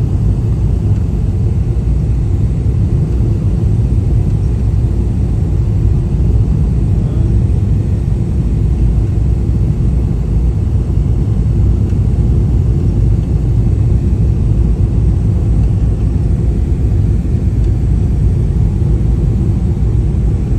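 Steady low rumble of engine and airflow noise inside a jet airliner's cabin during the descent to landing.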